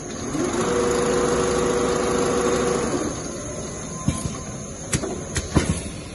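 Two-head CNC sewing machine stitching leather: a steady motor hum for about two seconds, then fades, followed by several sharp mechanical clicks.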